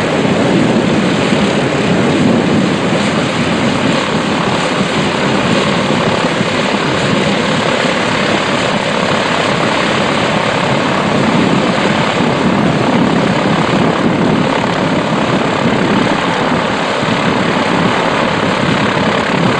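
Grumman G-164 Ag Cat seaplane's engine and propeller running steadily and loudly.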